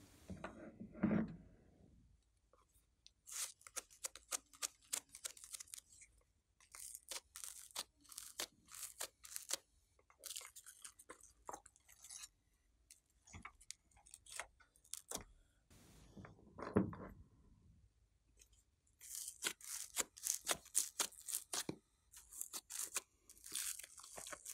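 Slime being pressed, scooped and peeled off plastic trays by hand, giving runs of sticky crackling and popping clicks. There are two duller squelches, one about a second in and one around two-thirds of the way through.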